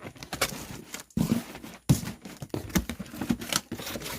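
Cardboard shipping box being handled and opened: irregular knocks, scrapes and rustles of cardboard and packing.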